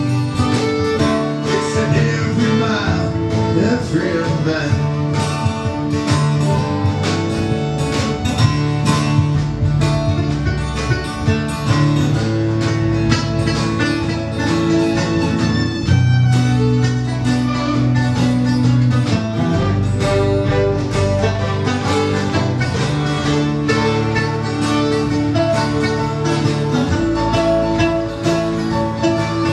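A live acoustic band playing a bluegrass-style country tune: strummed acoustic guitars with a fiddle.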